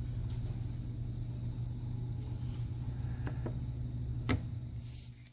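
A steady low hum with a few light clicks and taps from reassembling a phone, the sharpest about four seconds in; the hum fades away near the end.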